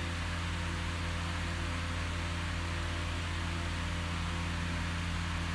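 Steady low hum with an even hiss over it, unchanging throughout: background noise of the recording, with no distinct event.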